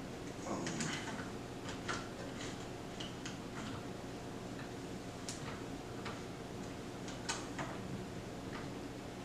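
Irregular light clicks and taps of small metal hardware and a hand tool being handled during crossbow assembly, over a steady low hum.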